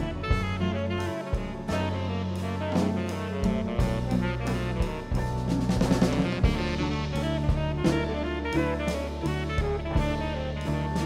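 Small jazz ensemble playing live: tenor saxophone over drum kit, electric bass, cello and electric guitar. The drum kit is busy throughout, with a dense run of strokes about halfway through.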